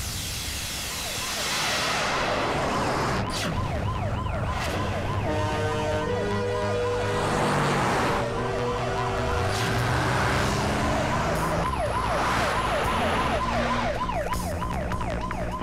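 Emergency-vehicle siren wailing in a fast, repeated rise and fall, over held steady tones in the middle and a low rumble beneath.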